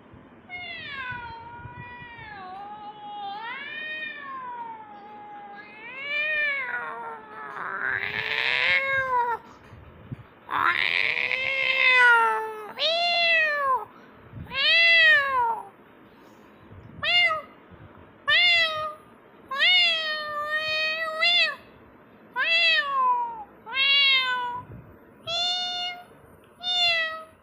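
A kitten meowing again and again in high, wavering calls, two of them louder and harsher; the calls then become a run of short, separate meows about one a second.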